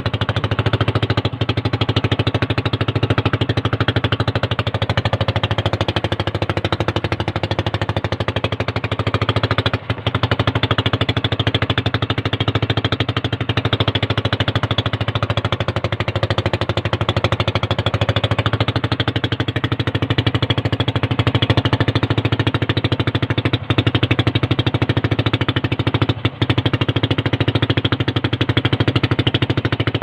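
Small boat engine running steadily under way, heard from aboard the boat, a low hum with a fast, even pulsing.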